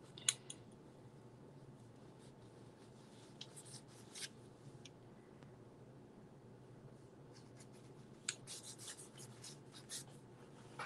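Faint, short scratches of a paintbrush stroking over the paper of an art journal page, coming in scattered strokes that grow more frequent near the end, over a low steady hum. A single sharp tap about a third of a second in is the loudest sound.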